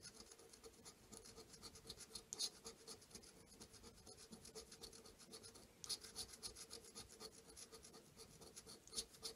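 Faint, rapid scraping as the latex coating is scratched off an instant lottery scratch ticket with a coin-like disc. A few strokes are louder, about two and a half, six and nine seconds in.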